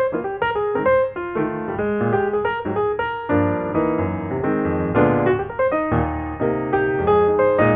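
Background piano music: a quick run of notes over chords.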